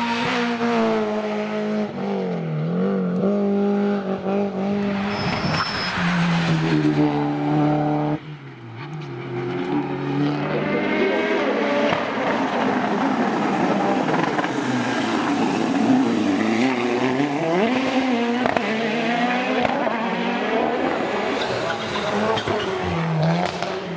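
Race car engines revving hard on a hillclimb, their pitch repeatedly rising and falling through throttle blips and gear changes, with tires squealing at times. The sound cuts abruptly to another car about eight seconds in.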